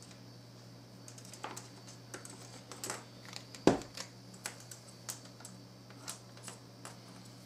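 Small clicks and taps of a soldered steel wire bristle and its clip being handled on a workbench, with one much louder knock about halfway through as the soldering iron is set down on the bench. A faint steady hum runs underneath.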